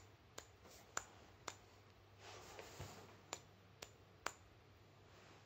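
Faint sharp clicks and taps from handling a turntable tonearm counterweight and its stub as it is drawn off the arm, about seven clicks spread over a few seconds, with a short soft rustle near the middle.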